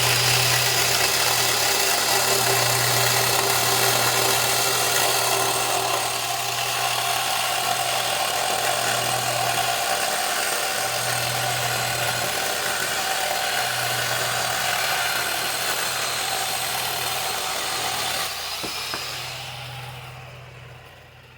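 Worx electric chainsaw running and cutting through pressure-treated lumber, its chain running loose. The motor's sound changes about six seconds in and winds down over the last few seconds.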